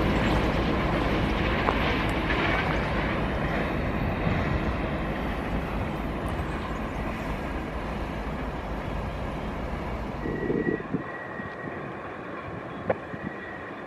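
BNSF freight train of covered hopper cars rolling past behind its diesel locomotives, a steady rumble and rail noise that slowly fades as the train draws away. About ten seconds in it gives way to a much quieter open-air background.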